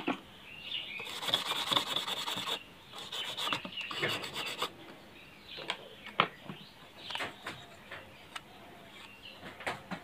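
Two stretches of fast scratchy rubbing, then scattered light clicks and taps, as a mobile phone's board and frame are handled on a hard workbench.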